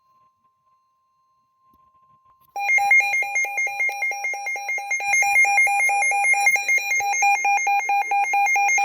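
Emergency weather alert tone: a loud electronic alarm that rapidly alternates between two pitches, starting about two and a half seconds in, with a faint steady tone before it. It signals a severe thunderstorm warning.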